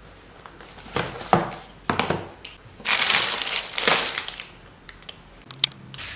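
Plastic packaging crinkling and rustling as wrapped boxes are handled, in irregular bursts with the loudest stretch from about three to four and a half seconds in. A single sharp tick comes near the end.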